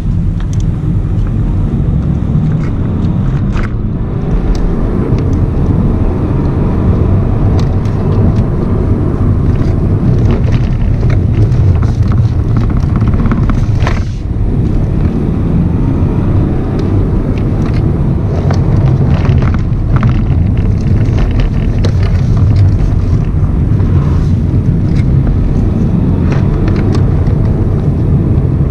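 BMW 118d's four-cylinder turbodiesel engine running under way, with tyre and road noise, heard from inside the cabin. The sound is steady, with a brief dip in loudness about halfway through.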